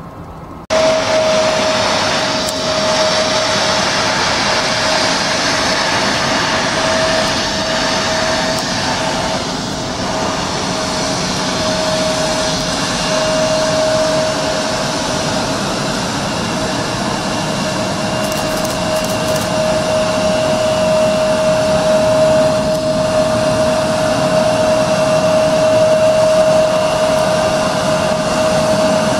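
Turbofan engines of a taxiing British Airways Embraer E170 airliner running at taxi power: a steady whine over a rushing roar, growing a little louder toward the end as it passes close by.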